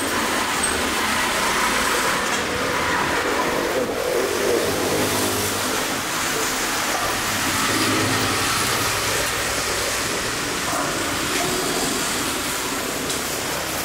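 Steady street traffic noise from cars and motor scooters running on the road.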